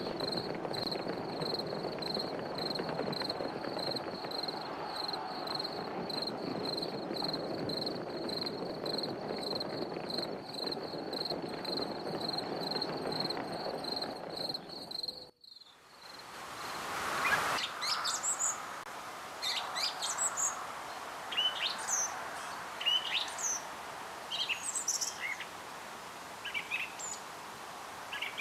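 An insect chirping in a steady, fast pulse over a low, even background noise, which cuts off about halfway through. Then a brief rush of noise and many birds chirping in short, quick calls.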